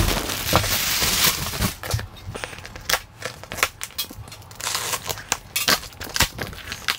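Cardboard shipping boxes and crumpled packing paper being handled: a dense rustle for about the first second and a half, then a run of sharp, irregular crackles and clicks as the inner cardboard carton is worked open.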